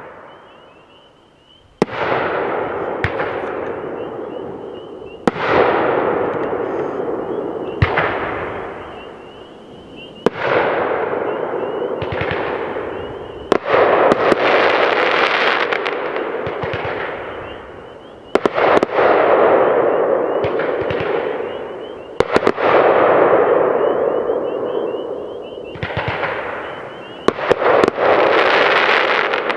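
A 22-shot consumer firework cake, the Brothers Pyrotechnics 'I Love Fireworks', firing a volley of aerial shells. Sharp reports come about every two to three seconds, some in quick pairs, and each is followed by bursting, crackling stars that fade away.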